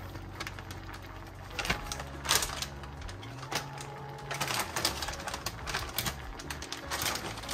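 Frozen green beans being tipped into a soup pot, the pieces clicking and rattling irregularly as they drop.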